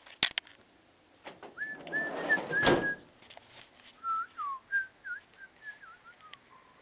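A person whistling a tune in short notes with small slides in pitch. Sharp clicks near the start and a clattering handling noise ending in a loud click about three seconds in sound over it.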